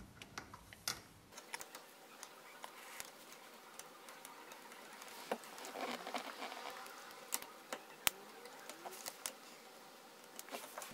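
Faint, scattered clicks and ticks of small metal and plastic parts being handled as the steering-column light and indicator switch of a 1970 Alfa Romeo GT Junior is fitted with its spring.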